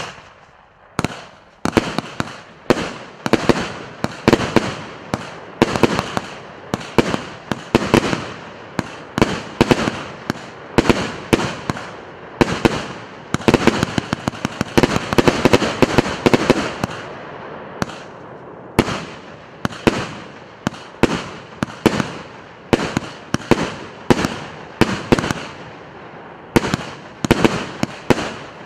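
PC890 consumer firework battery (multi-shot cake) firing a continuous volley of shots: sharp bangs about one to two a second, with a haze of noise between them.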